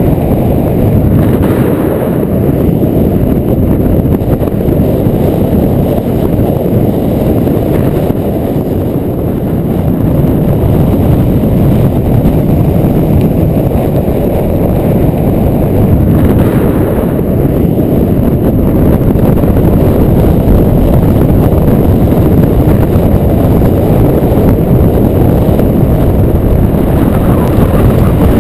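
Strong wind buffeting the microphone, a loud, steady low rumble that swells and eases slightly.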